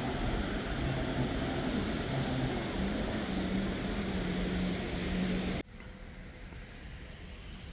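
Steady rush of floodwater pouring through a dam's open spillway gates, with a low wavering hum underneath. It cuts off abruptly about five and a half seconds in, leaving a much quieter hiss with a faint high whine.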